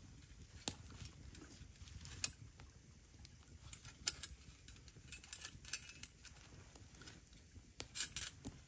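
Scattered light clicks and clinks of camp cooking gear and utensils being handled, with a few sharper ticks.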